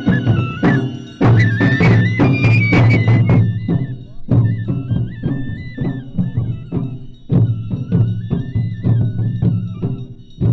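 Traditional folk music with a steady drum beat under a melody that moves in held notes.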